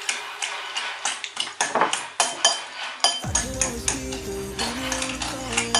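Metal utensil stirring a thick mixture in a glass bowl, clinking and scraping against the side of the bowl many times in quick, uneven strokes, over background music.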